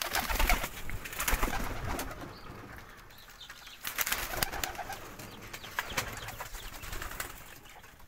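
Doves cooing, over rustling and a run of sharp clicks and knocks that are loudest in the first couple of seconds.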